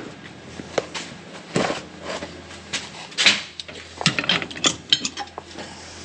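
Metal hand tools clinking and clanking as they are handled and gathered up: irregular sharp knocks, the loudest a little past the middle.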